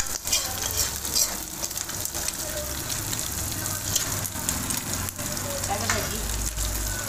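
Chicken pieces sizzling as they fry in hot oil in a kadai, a steady hiss with sharp crackles here and there.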